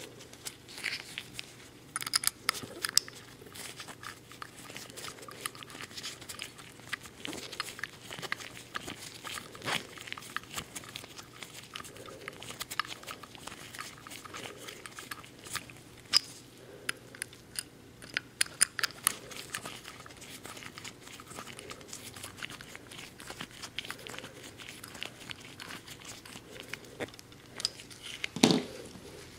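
Handling noise of a steel revolver cylinder in nitrile-gloved hands: irregular small metallic clicks and scrapes as a tool works against it, with glove rubbing. A louder knock and rub comes near the end.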